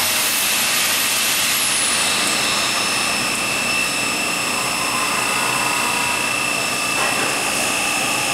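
CNC machining centre running with flood coolant spraying against the inside of its enclosure window: a steady loud hiss with a high steady whine over it.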